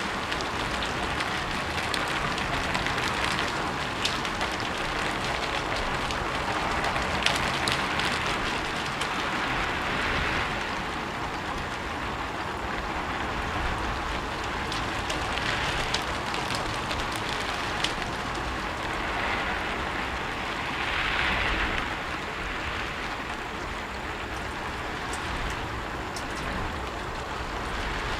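Steady rain falling on a rooftop, a dense hiss that swells and eases every few seconds, with scattered louder drips.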